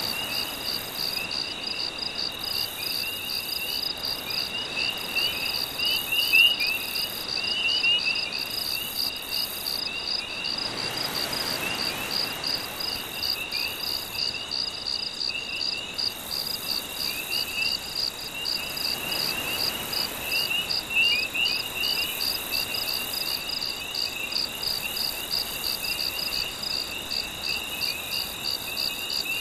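Night chorus of crickets chirping in a steady, even rhythm over a lower, warbling chorus of calls. Gentle waves wash in softly twice beneath them, about a third of the way in and again past the middle.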